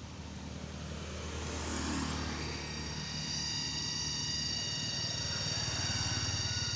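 Aircraft engine droning overhead, growing louder over the first two seconds and then holding steady, with a steady high whine joining about three seconds in.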